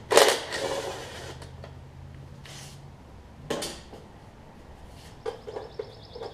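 Metal clanks and clicks of hand tools unbolting a riding mower's engine cover: a loud clatter just after the start, another short clank in the middle, and a quick run of clicks near the end.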